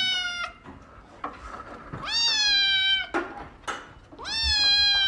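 Grey-and-white kitten giving long, loud meows, one about every two seconds: one trailing off at the start, a full one about two seconds in, and another starting near the end.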